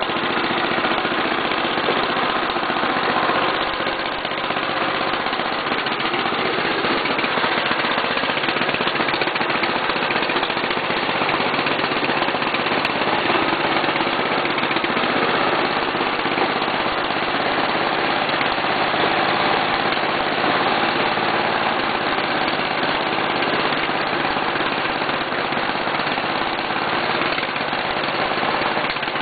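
1985 Briggs & Stratton 11 hp single-cylinder engine on a riding lawn tractor, running steadily as the tractor drives around.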